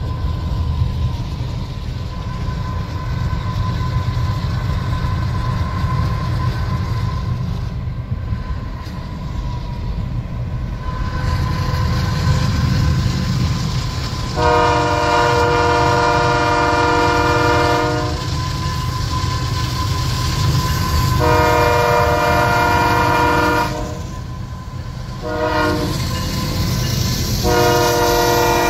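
Canadian Pacific diesel locomotive's horn sounding the grade crossing signal, two long blasts, a short one and a long one, over the low rumble of the moving train.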